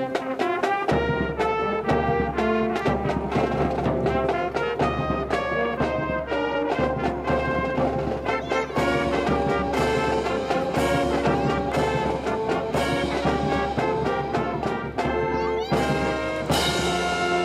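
Brass band music played to a steady beat, with quick runs of notes from trumpets and trombones.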